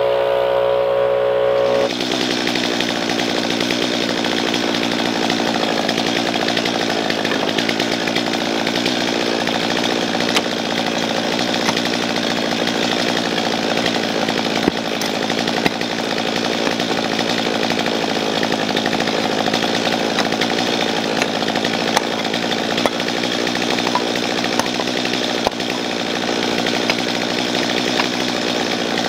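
A handheld power tool's small engine running steadily at high speed with a broad rushing noise. It takes over from a lower, steadier engine hum about two seconds in.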